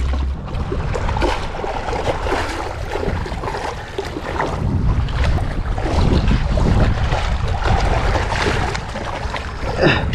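Wind buffeting the microphone over choppy water lapping and splashing against shoreline rocks.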